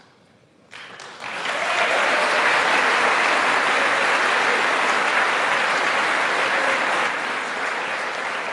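A large seated audience applauding. The applause starts about a second in after a brief lull, quickly grows to a steady wash of many hands clapping, and begins to die down near the end.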